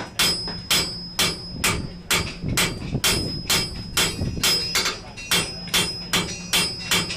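Blacksmith's hammer striking hot steel on an anvil while hand-forging a thumb latch: a steady run of blows, a little over two a second, each with a short high metallic ring.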